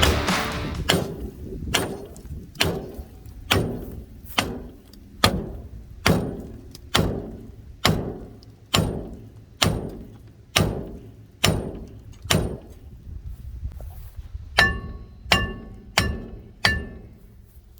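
Steady hammer blows on metal, about one a second, around twenty in all; the last few ring with a clear metallic tone. A hammer banging loose a stuck front brake drum.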